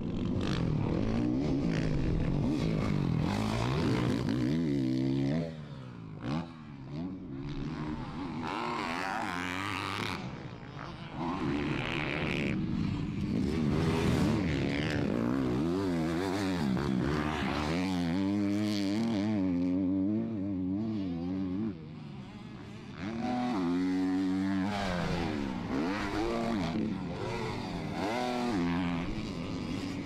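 Four-stroke motocross bike engines revving hard, their pitch repeatedly climbing and dropping as the riders rev, shift and back off. There are short quieter stretches about five seconds in and again about twenty-two seconds in.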